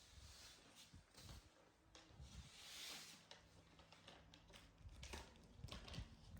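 Near silence: faint rustling and light taps, with a soft hiss lasting about a second around three seconds in.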